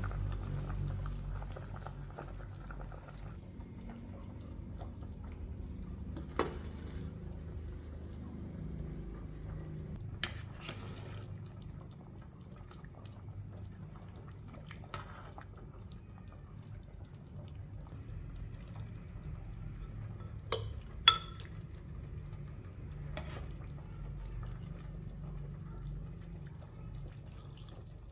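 Chicken soup being ladled with a metal ladle: broth slopping and dripping, with a handful of sharp clinks of the ladle against the pot, the loudest about three-quarters of the way through, over a steady low rumble.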